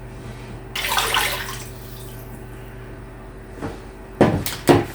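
Cold water poured into a crockpot, a splashing rush lasting about a second. Three short knocks follow near the end.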